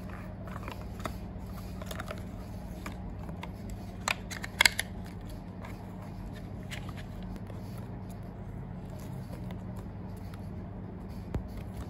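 Hands handling a phone charger's cardboard box, paper leaflet and plastic tray: light rustling and scattered small clicks, with a few sharp louder clicks about four and a half seconds in. A steady low hum runs underneath.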